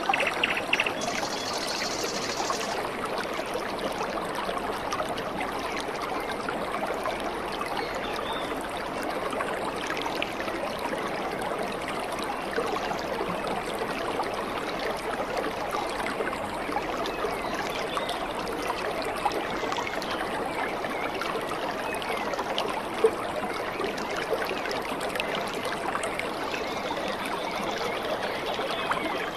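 Shallow stream running steadily over rocks, a constant trickling wash of water, with a single sharp click about two-thirds of the way through.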